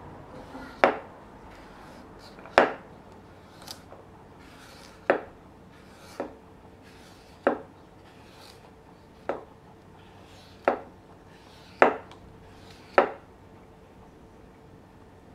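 Kitchen knife coming down on a cutting board in about ten slow, separate cuts, spaced unevenly a second or two apart.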